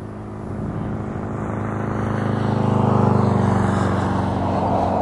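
Twin rear-engined jet airliner climbing away after takeoff: jet engine noise, a rushing sound over a steady droning hum, swelling to its loudest about three seconds in and then easing slightly.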